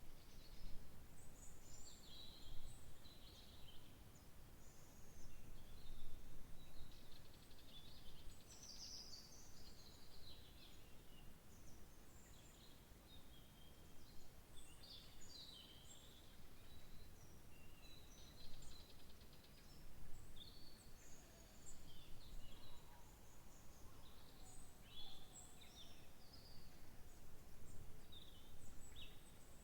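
Several songbirds chirping and trilling in quick, overlapping short phrases, over a low steady background rumble.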